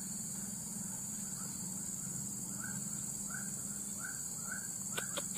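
Steady high insect buzzing from the field, with a short rising chirp call repeating about every half-second. A quick run of sharp clicks comes near the end.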